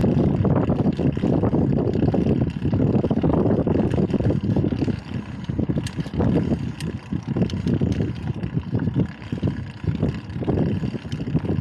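Wind rumbling and buffeting the microphone while riding a bike, easing somewhat about five seconds in, with a few light clicks.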